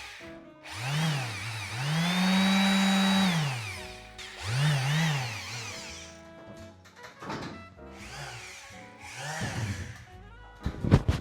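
Electric sander's motor spinning up and winding down again and again as the power cuts in and out, once holding full speed for over a second before dying. The stop-start comes from a faulty, intermittent extension cable.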